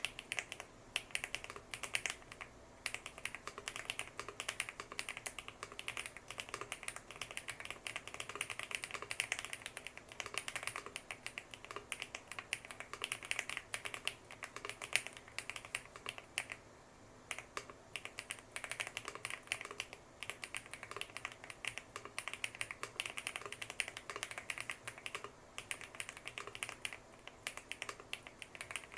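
Continuous fast typing on a Lucky65 V2 gasket-mount mechanical keyboard fitted with HMX Purple linear switches and purple PC Cherry-profile keycaps: a dense stream of keystroke clicks with a short pause about seventeen seconds in.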